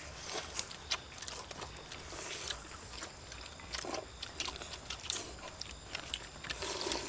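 Several people eating noodles: slurping and chewing, with many light clicks of chopsticks against ceramic bowls.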